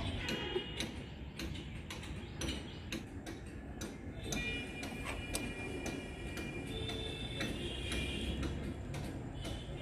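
Irregular light ticking and clicking, with faint steady high tones joining in from about four seconds in.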